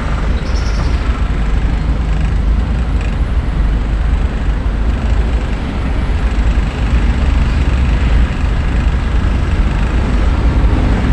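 Steady low engine rumble and road noise of a vehicle being driven, heard from inside the cab.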